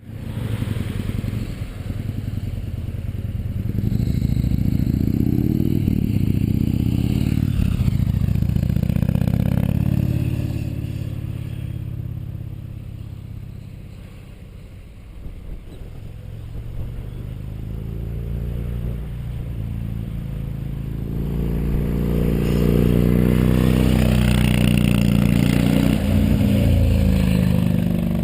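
Yamaha MT-01's 1670 cc V-twin running through a full titanium Akrapovic exhaust with the EXUP valve and catalysts removed, pulling up in pitch, easing off in the middle, then climbing and holding loud again.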